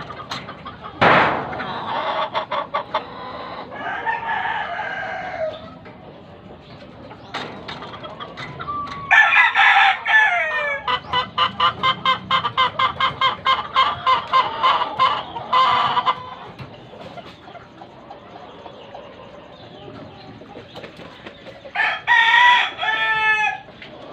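Hatch gamefowl roosters crowing and clucking. There are calls a second or so in, then a loud crow about nine seconds in that runs into a quick string of clucks, about four a second, for some five seconds. Another crow with a falling end comes near the end.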